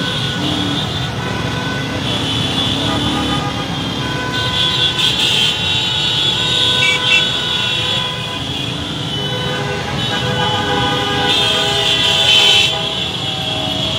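Many motorcycle and car horns honking over and over, overlapping one another, above the steady running of engines in slow, crowded traffic, with crowd voices mixed in.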